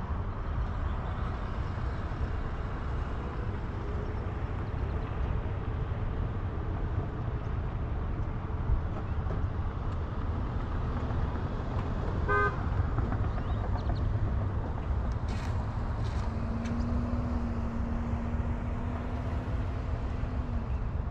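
Steady low road and wind rumble of a vehicle travelling at speed. About halfway through there is a brief pitched chirp, and near the end a steady low tone holds for about four seconds.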